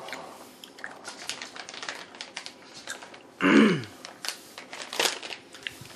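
Plastic snack packaging crinkling and rustling in a run of small crackles and clicks as it is handled, with a short voice sound about three and a half seconds in.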